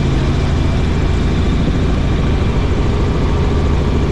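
Helicopter in flight: engine and rotor running steadily, a loud constant drone with a low hum.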